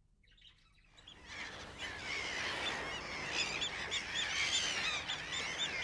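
A flock of gulls calling, many short, overlapping cries repeated over and over, fading in about a second in.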